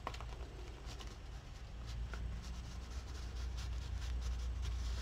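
A stubby Stabilo pencil scribbling along the edge of a collage page: a run of faint scratchy strokes over a steady low hum.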